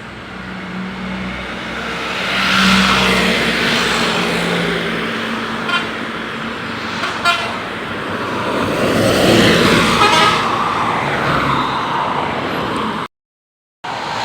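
Tour bus passing while sounding a telolet basuri musical air horn over the noise of its engine and tyres. The sound swells about two seconds in and again around nine seconds in.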